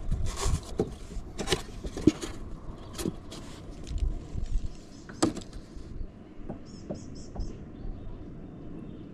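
Handling noises in a kayak: a wire minnow net is dipped into a foam minnow bucket with splashes of water, then a run of knocks and taps as the rod is handled to bait the hook. A quick series of short high chirps comes about seven seconds in.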